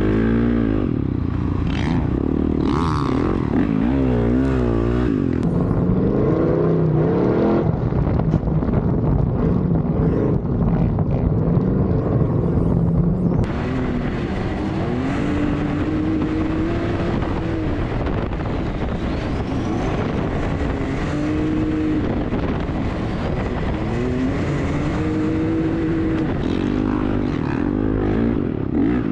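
A dirt bike's engine revving up and down under riding load in sand, its pitch swinging with the throttle; about halfway through it changes to a side-by-side UTV's engine heard from the driver's seat, pitch rising and falling as it accelerates.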